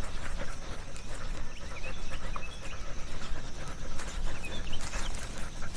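Dog panting heard up close through a camera strapped to the dog, with a rumbling, uneven rubbing and bumping from the mount as the dog moves.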